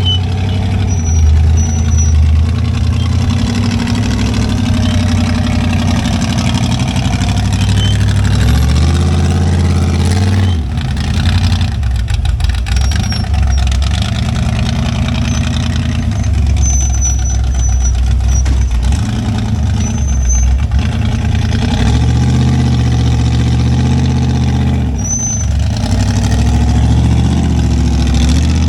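Off-road rig's engine running at low revs, its pitch stepping up and down as the throttle is worked.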